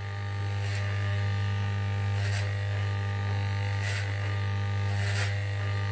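Electric hair clippers buzzing steadily as they cut a boy's hair, with a few short rasps over the low, even drone.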